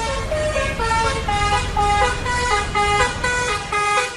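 Pop song intro: a melody of short, horn-like honking notes that change pitch about four times a second, over a low rumble that cuts off near the end.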